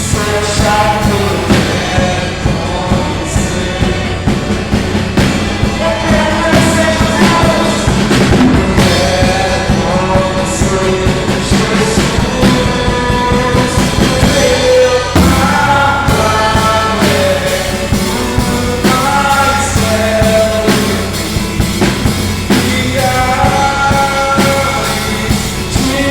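Live worship song: a singer's melody over acoustic guitar and a drum kit played with sticks, the drums keeping a steady beat with cymbals. Recorded through a phone's microphone.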